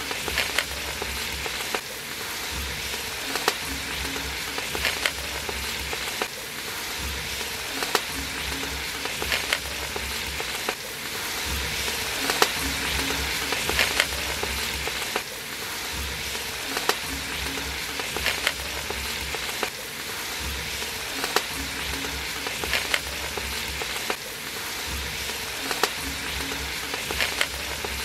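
Tomatoes, chillies and chilli powder sizzling in hot oil in a large aluminium pot as the biriyani masala is fried. A perforated steel ladle stirs the mix and knocks sharply against the pot about every second and a half, and the sizzle grows a little louder about halfway through.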